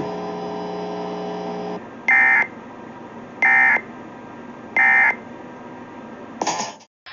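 Emergency Alert System end-of-message data bursts: three short, identical electronic buzzes about 1.3 seconds apart, signalling the end of an alert. They follow a steady electronic hum that stops just before them, and a brief blip comes near the end before the sound drops out.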